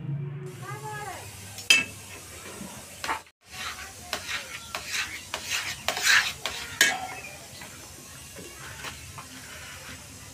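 A metal spatula scraping and knocking against an iron kadhai while stirring milk being cooked down into khoya, a quick run of strokes that then gives way to a fainter steady simmer.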